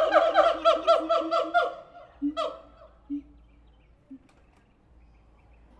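Siamangs calling: a rapid series of loud, pitched whooping notes, about five a second, that fade out about two seconds in, followed by a few short, low hoots.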